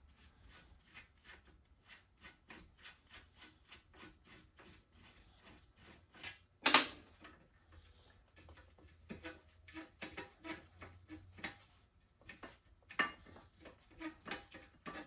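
Ratchet wrench clicking steadily, about four to five clicks a second, working on the bolts of a motorcycle engine guard. A single loud metal clank comes about seven seconds in, then more clicking and a few sharper knocks near the end.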